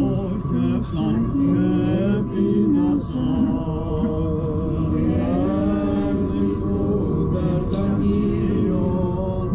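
Byzantine chant of the Orthodox vespers, sung unaccompanied by a male voice in a slow, ornamented melody.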